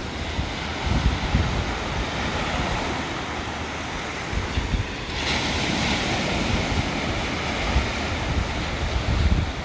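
Ocean surf washing, with a wave breaking into a louder hiss about five seconds in. Wind buffets the microphone with uneven low rumbles.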